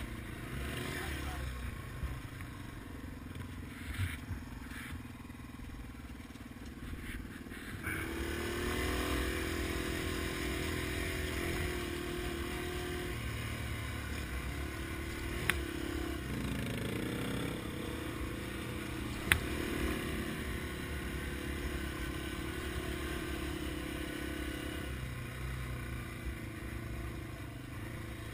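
Yamaha TW200's single-cylinder four-stroke engine running while riding a sandy dirt trail. It picks up and runs louder about eight seconds in, with two sharp knocks partway through.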